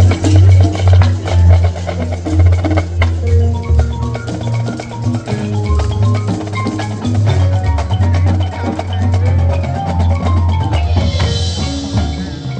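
Marching band playing, the front-ensemble mallet percussion (marimba, xylophone) and drums prominent over a sustained low bass line. A hissy, cymbal-like swell comes in near the end.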